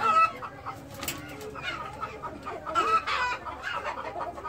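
Pheasants in an aviary calling with short clucking calls, the loudest right at the start and another loud burst about three seconds in.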